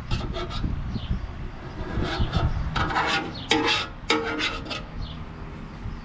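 Repeated scraping strokes, a tool rasping baked-on gray sludge out of the bottom of a 225 Slant Six oil pan; the strokes come in irregular runs, several short ones at the start and a run of about one every half second from the middle on.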